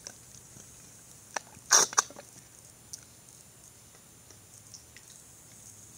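A few small handling clicks, with the loudest a short double knock about two seconds in, over a faint steady hum: food and feeding gear being handled at the tank.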